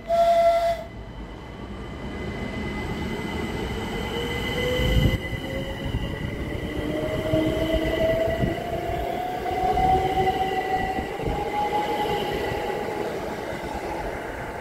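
A train sounds a brief horn note at the very start, then pulls away: a traction-motor whine rises steadily in pitch for about ten seconds over the rumble of wheels on the rails.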